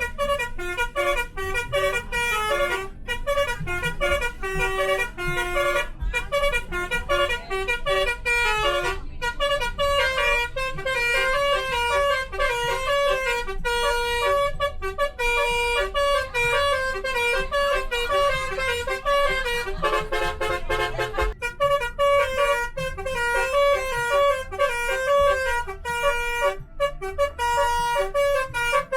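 Basuri telolet horn, a multi-tone electric bus horn, playing a fast melody of short stepped notes without a break.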